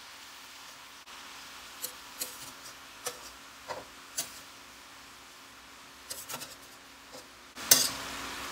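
A spatula scraping and tapping against a stainless steel pan while shredded cabbage is stirred and tossed, in scattered short scrapes, with a louder clatter near the end.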